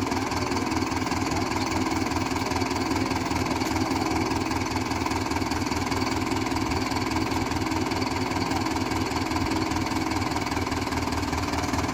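Tractor's diesel engine idling steadily with an even, rhythmic chug.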